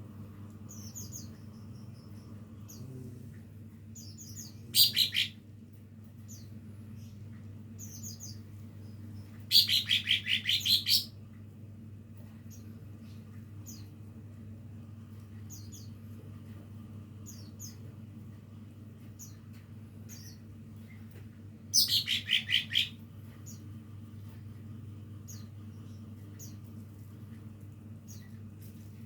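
Young caged leafbird (cucak ijo) practising its song: many short, high chirps scattered through, broken three times by loud, rapid rattling bursts of a second or so.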